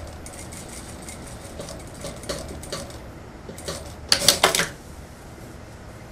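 Computerized industrial single-needle sewing machine stitching a straight seam in jacket fabric in slow, short runs, with light ticking stitch by stitch. About four seconds in comes a brief, louder clatter of sharp clicks, then the machine stops.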